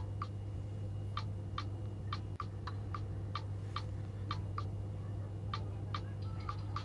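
Light, ringing clicks at an uneven pace of about two a second, over a steady low electrical hum.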